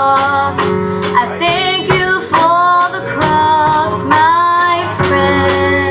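A woman singing a slow worship song, holding long notes, over strummed acoustic guitar.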